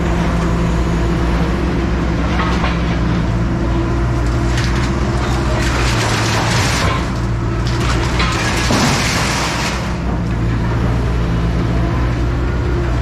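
A large engine running steadily, with two bursts of rushing, clattering noise over it, the first about six seconds in and a longer one about nine seconds in.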